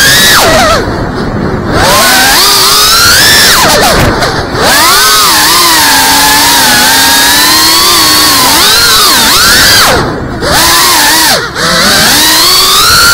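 GEPRC CineLog35 cinewhoop's brushless motors and ducted propellers buzzing, the pitch rising and falling with the throttle. It drops back briefly about a second in, at about four seconds, and twice near the end as the throttle is cut.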